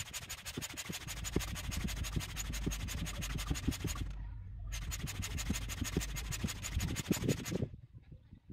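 Air pump inflating an inflatable floating bathing platform: a fast, even pulse with irregular knocks underneath. It breaks off briefly about four seconds in and stops shortly before the end.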